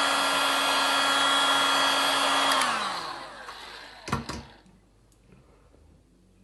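Heat gun blowing steadily with a fan whine while drying acrylic paint. It is switched off about two and a half seconds in and its whine falls away as the fan winds down. Two quick knocks follow.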